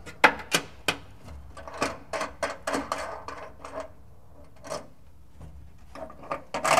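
Sharp clicks and snaps of wire cutters and hand tools working a wiring harness as a wire is cut and handled. There are three crisp snaps in the first second, then a run of smaller clicks, and a louder clatter near the end.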